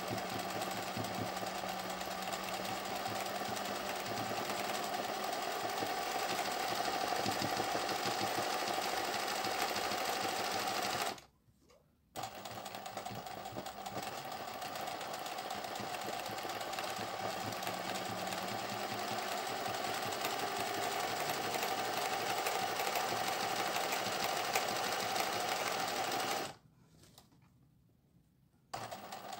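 Singer 20U industrial zigzag sewing machine running steadily as it stitches a felt appliqué. It stops twice: briefly about eleven seconds in, and for about two seconds near the end.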